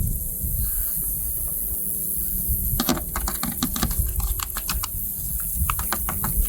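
A spice shaker being shaken and tapped over raw ribs, giving a run of quick, uneven clicks and ticks about three to six seconds in, over a low steady rumble.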